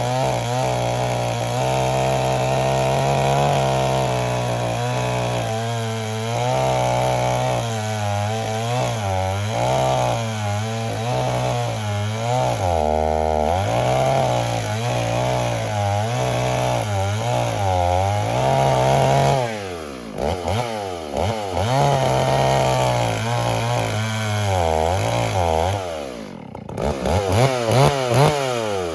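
Chainsaw running at high revs and cutting through tree wood, its engine pitch sagging under load, dipping lowest about halfway through. In the last third it is throttled up and down repeatedly, ending in quick revving blips.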